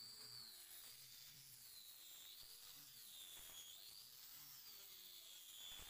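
Faint high whine of an electric angle grinder with a sanding disc working over a wooden door, its pitch dipping and rising as the disc is pressed on and eased off, over a steady hiss.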